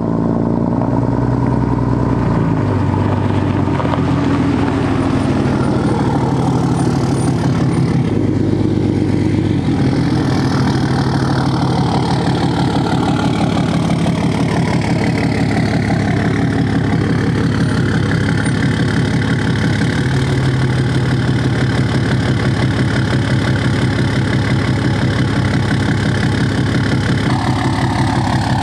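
A pickup truck engine running steadily, its pitch shifting up and down several times.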